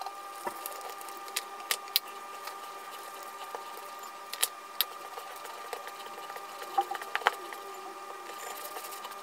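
Hands mixing flour into a soft yeast dough in a glass bowl: scattered light taps and clicks of fingers and dough against the glass, over a steady faint hum.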